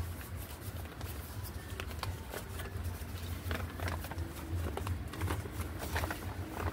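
Irregular clicks and taps of a spoon against a bowl as a flour-and-water batter is mixed by hand, over a steady low hum.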